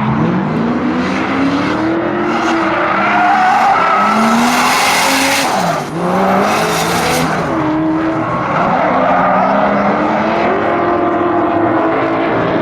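Drift car on a competition run: its engine repeatedly revs up and falls away, with tire squeal and skidding that are loudest from about four to seven seconds in.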